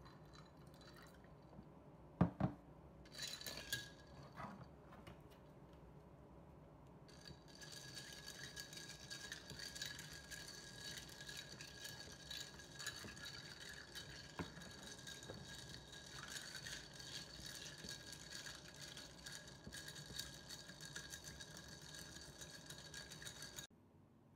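A sharp knock about two seconds in and a few glassy clinks. Then, from about seven seconds in, ice cubes clink rapidly and continuously against a tall drinking glass as iced coffee with milk is stirred with a plastic straw, the glass ringing. The sound cuts off sharply near the end.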